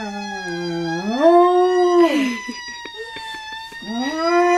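Dog howling: long, drawn-out howls that slide up in pitch, hold, then fall away, with a higher, steadier note carrying on in the gap before the next howl rises near the end.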